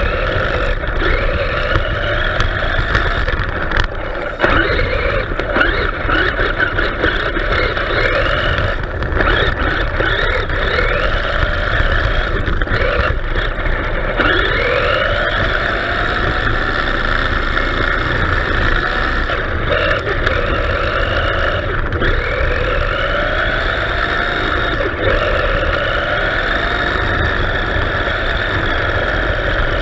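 The 21-turn electric motor and drivetrain of a 1989 MRC Road Winner RC buggy whining, the pitch rising again and again as it accelerates, over a steady rumble of tyres on a rough road.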